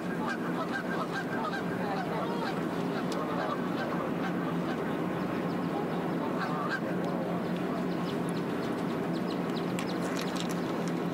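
A continuous chorus of many overlapping, wavering bird calls over a steady low hum.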